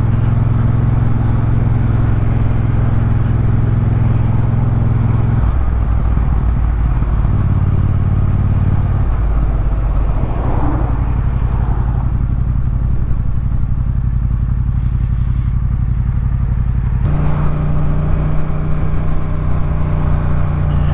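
Yamaha MT-07's parallel-twin engine running on the move. Its revs drop in steps about five and nine seconds in, then pick up again near the end.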